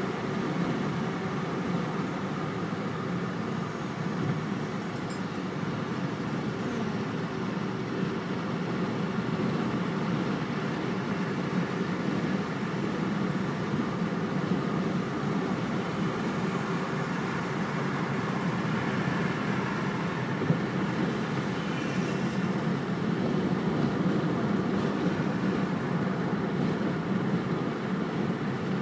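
Steady road noise of a car cruising at freeway speed, heard from inside the car: a continuous low drone of tyres and engine.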